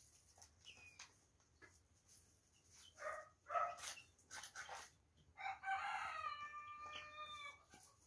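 A few short clucks and calls from poultry, then a rooster crowing once, one long call held for about two seconds near the end.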